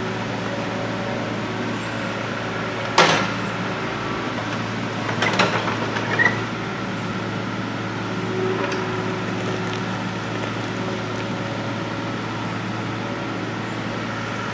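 Kubota mini excavator's diesel engine running steadily, with a sharp knock about three seconds in and a short clatter of knocks around five to six seconds in.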